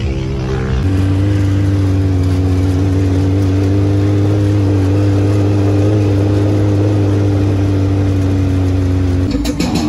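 Sand rail's engine running at a steady, even pitch while driving, changing pitch and breaking up near the end.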